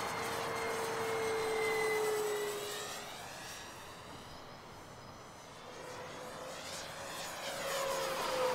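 Electric motor and propeller of a FlightLine RC Ta 152H model warbird whining in flight. The whine sinks slightly in pitch and fades through the middle as the plane moves away, then grows louder and dips in pitch again on a close pass near the end.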